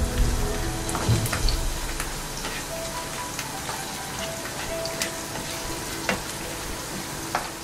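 Chopped nuts and dates sizzling in hot ghee in a nonstick frying pan while a plastic spoon stirs them, with a few sharp taps of the spoon against the pan.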